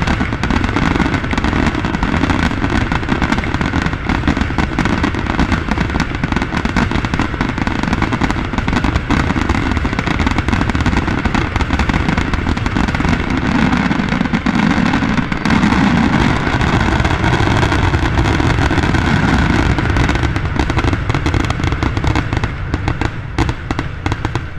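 Aerial fireworks in a dense, continuous barrage: many shells bursting at once with rapid cracks and low booms and no break between them, the grand finale of the show. The barrage thins out a little near the end.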